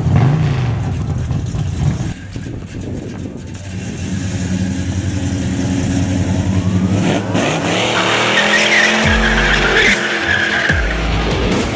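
Classic muscle car engine revving hard as the car pulls away, rising in pitch about two-thirds through, then a long screech of spinning rear tyres in a burnout.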